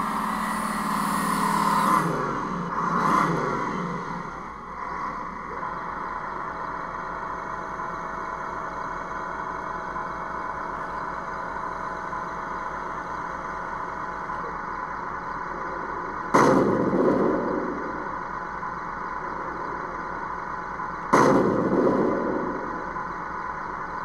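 The Tamiya 1/16 M551 Sheridan RC tank's built-in sound unit plays a steady simulated engine sound, with the drive motors whining and revving as the tank moves in the first few seconds. Near the end come two simulated main-gun shots about five seconds apart, each sudden and loud and dying away over a second.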